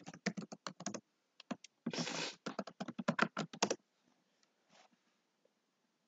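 Typing on a computer keyboard: quick runs of key clicks, with a dense flurry about two seconds in, stopping a little under four seconds in.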